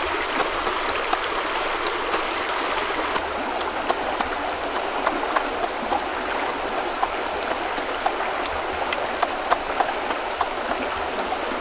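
A shallow stream running over rocks, a steady rushing, with scattered short smacking clicks from someone chewing food.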